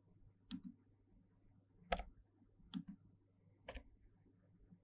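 A few faint computer mouse and keyboard clicks: four sharp clicks spread over about four seconds, the second and fourth the loudest.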